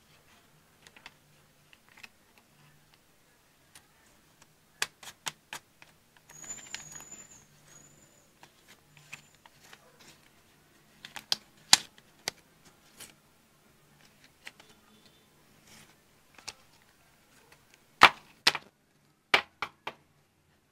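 AirPods and their packaging handled up close: a series of sharp, irregular clicks and taps, with a brief rustle about six seconds in and a cluster of louder clicks near the end.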